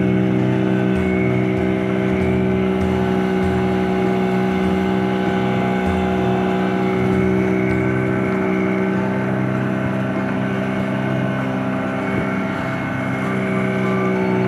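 Small fishing boat's engine running steadily at cruising speed while the boat is underway, a constant droning tone with strong overtones and no change in revs.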